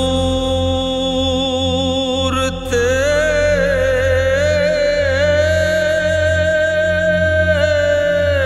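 Devotional naat singing: a single voice holding long, slightly wavering notes over a steady pulsing low beat, with the melody moving to a higher note about three seconds in.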